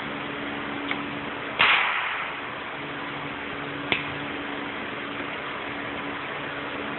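Hand tool clacking against a bare Honda cylinder head while its rocker arms are fitted: a light click, then one sharp loud clack about a second and a half in that fades quickly, and another click near four seconds, over a steady hiss.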